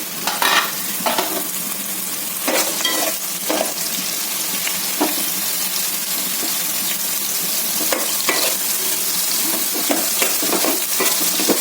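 Soaked soya chunks sizzling steadily as they fry in hot vegetable oil, with a spoon stirring them and knocking and scraping against the pan a dozen or so times.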